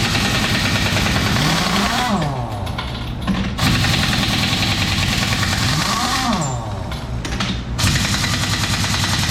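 A vehicle engine running, its pitch rising and falling several times, under a loud hiss that cuts out and returns twice.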